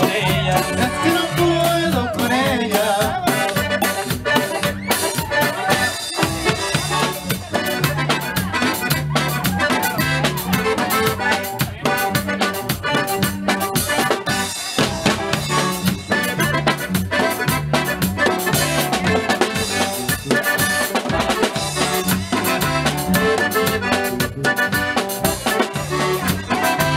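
Norteño-style dance music: accordion leading over an alternating bass line and a steady drum beat.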